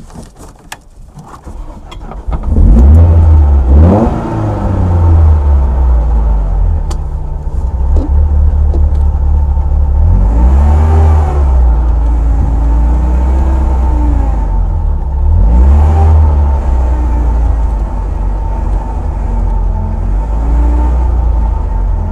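Rally car engine heard from inside the cabin, revved in repeated short blips while the car stands still, each one a quick rise and fall in pitch. It is faint for the first two seconds, then comes in loud.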